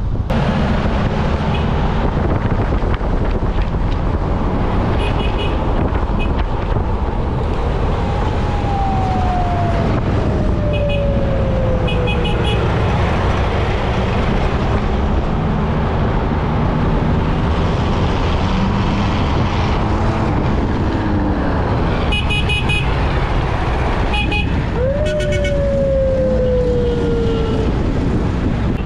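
Vehicle driving, with a dense, steady rush of engine, road and wind noise. Twice a whine slides slowly down in pitch over a few seconds, and light high rattles come and go.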